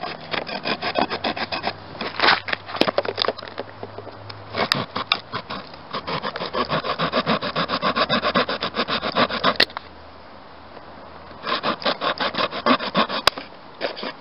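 Small folding saw blade of a Protocol axe multitool sawing in quick back-and-forth strokes. The strokes come in several runs, with a pause of about two seconds past the middle.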